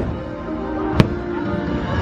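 Orchestral fireworks-show music playing, with sharp firework bangs, one right at the start and another about a second in.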